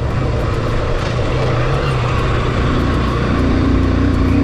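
Honda CB Shine 125's single-cylinder engine running steadily while the motorcycle is ridden, under a constant rushing noise.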